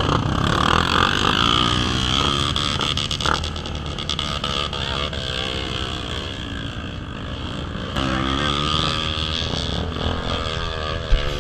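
A motor vehicle running steadily, with engine pitch that wavers up and down from time to time.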